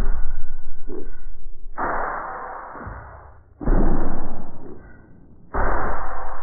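Edited soundtrack of repeated whooshing bursts, each starting suddenly with a low thump and fading away, a new one about every two seconds.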